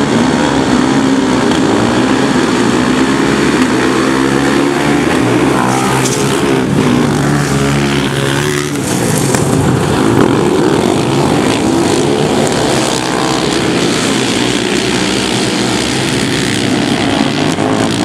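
Several 650 cc crosskart engines running hard together, their pitches rising and falling as they rev and change gear, with a dip and climb in pitch about eight to nine seconds in.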